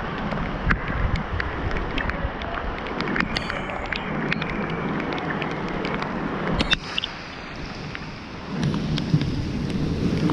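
Steady rain falling, with many sharp ticks of drops striking close to the microphone. There is a sharp knock about two-thirds of the way through, and wind noise on the microphone grows heavier near the end.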